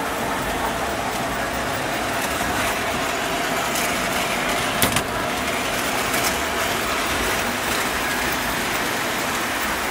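Model trains running on the layout: a steady rumble of wheels and motors on the track, with a faint steady hum and one sharp click about halfway through.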